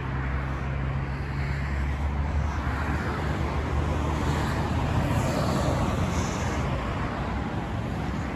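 Steady road traffic noise, with a low steady hum over the first two and a half seconds or so.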